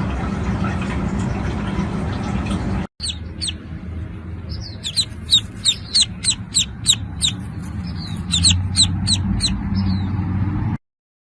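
A bird chirping repeatedly, short high chirps falling in pitch at about two to three a second, following a few seconds of steady noise that cuts off abruptly.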